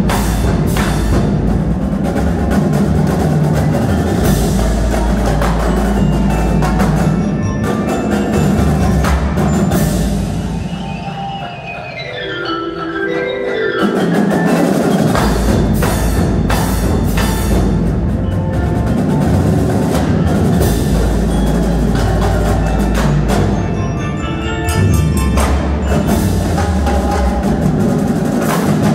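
Indoor percussion ensemble performing: front-ensemble marimbas and other mallet keyboards with marching snare, tenor and bass drums over a deep sustained bass. About ten seconds in, the ensemble thins out to a descending run of notes, and the full group comes back in around fourteen seconds.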